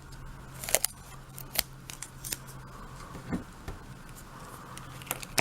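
Scissors snipping through sticky tape wrapped on a lock cylinder: a series of short, sharp separate snips, with a steady low hum underneath.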